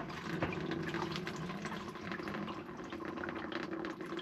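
Diesel fuel draining out of a 2017 Ford F-350 6.7L Powerstroke's underbody fuel filter/water separator housing through its opened drain tab, a steady stream pouring and splashing into a plastic drain pan held under it.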